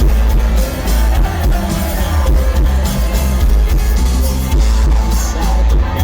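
Live rock band playing loudly through a stadium PA, with heavy bass, drums and electric guitar, recorded from the crowd with a distorted, bass-heavy sound.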